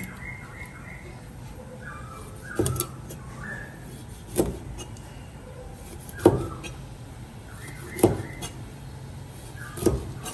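Cleaver slicing through a raw fish fillet, each stroke ending in a knock on a plastic cutting board: five strokes, a little under two seconds apart.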